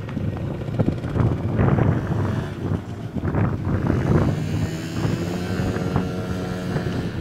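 A horse cantering and jumping on a sand arena, its muffled hoofbeats under heavy wind noise on the microphone. From about four seconds in, a steady engine drone joins.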